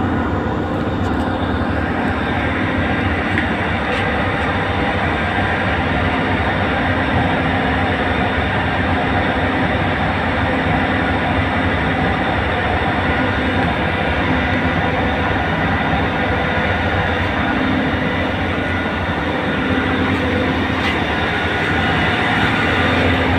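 A tugboat's diesel engine running steadily under load while towing a barge, a constant drone with a held hum. It grows a little louder near the end.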